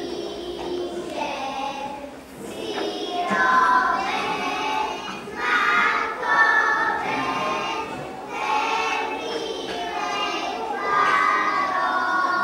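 A group of young children singing a folk song together in chorus, their high voices unaccompanied by any instrument that can be seen.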